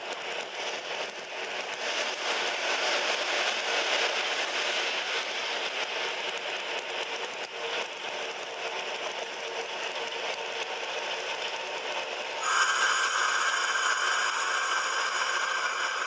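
A DA-class diesel locomotive's running noise, a steady rush of wheels, rails and engine, heard thin and without bass as it plays back through a screen's speaker. About three-quarters of the way through, a steady high ringing starts suddenly and carries on over it.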